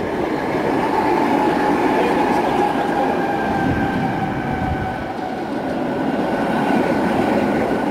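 Trams running along street track toward the listener: a steady rumble of steel wheels on rail with a steady high-pitched whine over it, sagging slightly in pitch midway.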